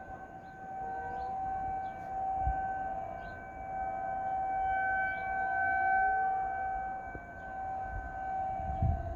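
Federal Signal 2001-SRN DC rotating outdoor warning siren sounding a steady two-note tone. Its level swells and fades every few seconds.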